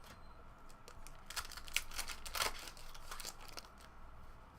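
Trading cards being handled and flipped through, a run of short crinkling and rustling strokes.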